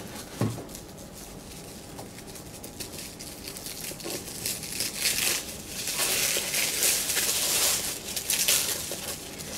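Hands unboxing a computer mouse: a soft knock about half a second in, light handling of a cardboard box, then a clear plastic bag crinkling over the second half.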